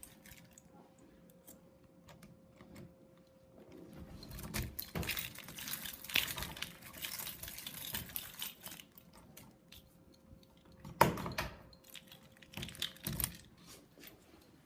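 Keys jangling and the clicks and rattles of a front-door lock being worked with a key, with a sharp knock about eleven seconds in. The lock is faulty and sticks: it will not lock from the inside.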